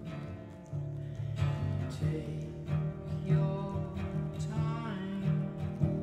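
Steel-string acoustic guitar played solo, chords strummed near the soundhole over strong low notes, with a fresh attack just under a second in after a brief lull.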